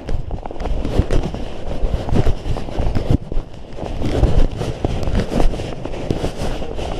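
Several people's footsteps crunching on packed snow, a dense run of short crackling clicks over a low rumble of handling noise from the hand-held camera.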